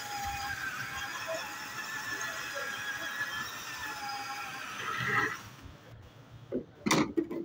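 Power drill boring into a plastic CCTV pattress box: a steady, high whine with a slightly wavering pitch that stops about five and a half seconds in, followed by a few sharp knocks near the end.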